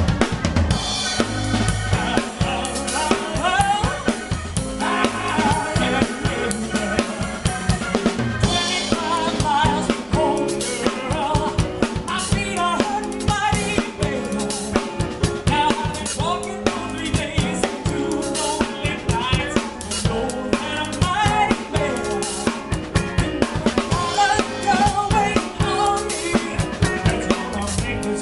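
A band playing a cover of a 1960s soul song: a steady drum-kit beat with bass drum, snare and rimshots over bass and other instruments.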